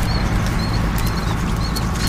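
Footsteps of a person in waders moving through wet grass and shallow water, a regular series of soft steps with light clicks. Under them runs the steady low hum of a truck engine idling.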